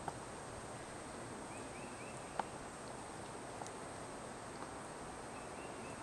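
Quiet woodland ambience in which a bird sings a short phrase of about four repeated rising-and-falling notes, twice. A few light sharp clicks, the loudest about two and a half seconds in, and a faint steady high tone run underneath.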